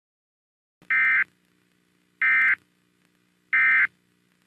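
Three short bursts of EAS SAME digital data tones, a harsh warbling buzz about 1.3 s apart: the end-of-message (EOM) code that closes an Emergency Alert System broadcast.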